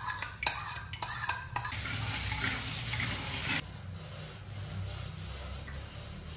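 A metal spoon clinking and scraping against a ceramic plate and clay pot of yogurt, several quick clinks in the first second and a half, followed by about two seconds of soft hissing noise.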